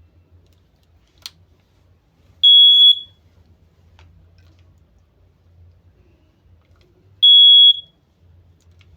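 Battery-powered standalone smoke alarm sounding two loud, high-pitched beeps, each about half a second long and about five seconds apart. A faint click comes about a second in.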